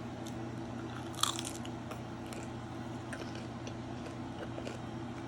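Someone biting into a crispy pan-fried wonton, with one sharp crunch about a second in and small crackles and clicks of chewing after it, over a steady low electrical buzz.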